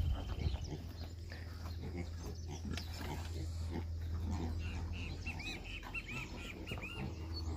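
Pigs in a pen grunting and calling irregularly, with a quick run of short, high squeals about five seconds in.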